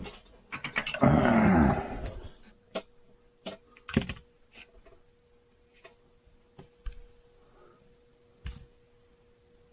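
Small parts and tools handled on a workbench: a loud rustle about a second in, then scattered sharp clicks and taps at irregular spacing.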